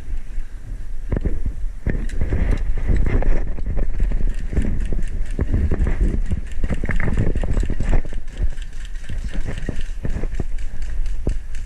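Footsteps of a person walking and moving quickly over the ground, a rapid irregular patter, with rustling and bumping of gear against a body-worn camera.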